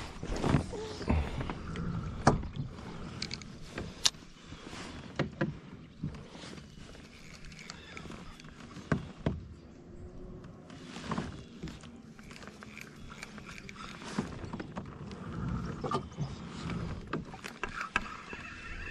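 Scattered knocks and clicks of gear being handled aboard a plastic fishing kayak, over a low, steady background noise.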